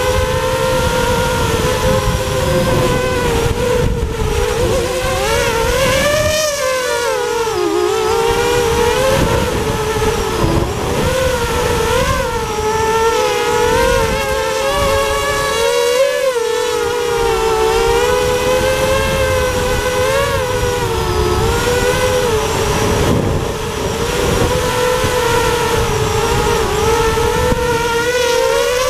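FPV quadcopter's brushless motors and propellers whining, the pitch wavering up and down with the throttle, over a low rumble of wind on the onboard camera's microphone that drops away briefly twice.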